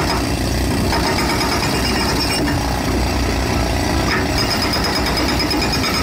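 Hydraulic rock breaker on a Hyundai tracked excavator, its chisel hammering into a boulder with a steady rapid pounding over the running engine.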